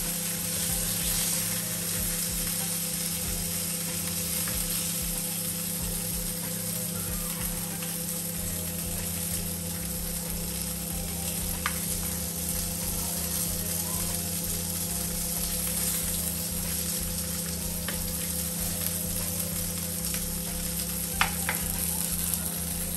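Fish fingers sizzling steadily as they shallow-fry in a little oil in a non-stick frying pan, with a couple of light clicks of a metal spoon against the pan as they are turned.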